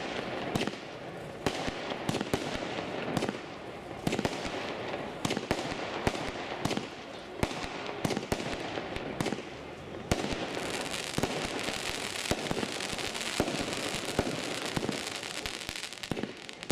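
ProfiLine 350 consumer firework battery firing: many sharp bangs of launching and bursting shells in quick, irregular succession, with a denser spell of crackle from about ten seconds in.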